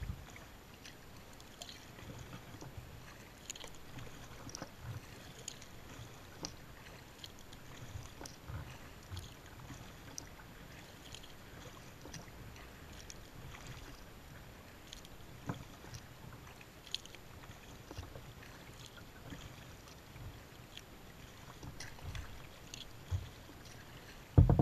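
Water lapping and splashing against a sea kayak's hull as it moves over calm sea, with scattered small drips and ticks and soft low thuds. A loud knock comes right at the end.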